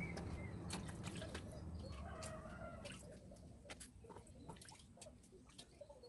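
Fresh pechay (bok choy) leaves and stalks rustling with light crisp clicks as hands stack them in a wooden bowl, with faint clucking of chickens in the background.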